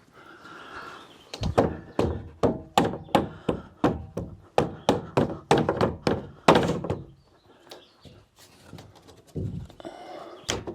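A quick run of about a dozen wooden thunks, two or three a second, stopping about seven seconds in, then a couple of softer knocks near the end: a part of a wooden outhouse being knocked into place.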